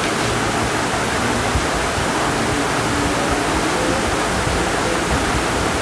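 A steady, even rushing hiss of background noise with no speech.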